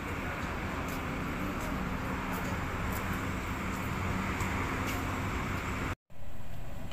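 Steady car engine hum and road noise of cars moving slowly. The sound drops out briefly about six seconds in and resumes much the same.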